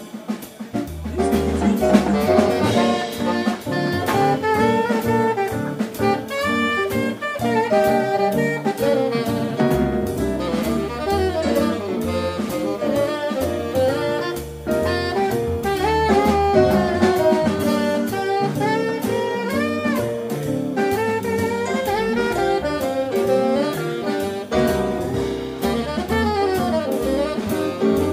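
Live jazz band playing an instrumental break with no singing: a saxophone solo over double bass, piano and drum kit.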